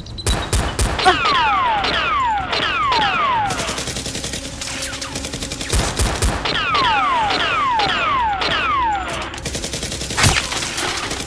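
Movie-style gunfire sound effects dubbed over Nerf blaster shooting. Rapid volleys of shots come with many falling ricochet whines in two spells, and one loud single shot comes about ten seconds in.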